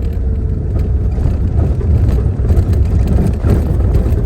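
Steady low rumble of a small car driving, tyre and engine noise heard from inside the cabin.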